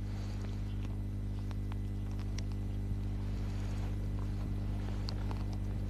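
Steady low hum with faint scattered clicks and crackle: the background noise of an old 1960s television studio recording.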